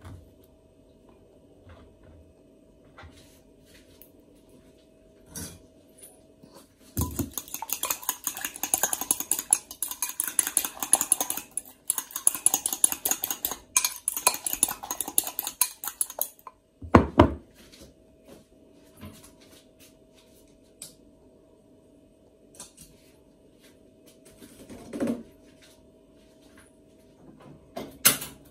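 Kitchen knife chopping a red onion on a cutting board in rapid strokes for about nine seconds, followed by a single heavy thump, over a faint steady hum.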